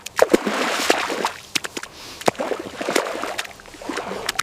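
Wet sloshing and splashing in thick mud and water, broken by many sharp, irregular splats.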